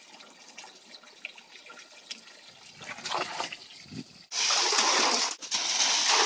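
Water from a garden hose trickling faintly into a pickup truck bed. About four seconds in comes a sudden loud, steady rush as a bag of ice cubes is poured into the water, with one brief break.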